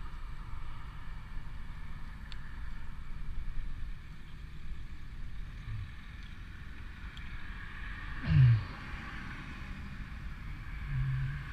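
Road traffic: a steady low rumble of cars on a wet road. About eight seconds in comes a short, loud low sound that falls in pitch, and a brief low hum near the end.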